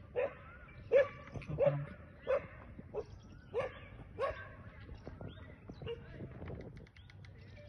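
A dog barking repeatedly, about one sharp bark every two-thirds of a second, with the barks stopping about four and a half seconds in.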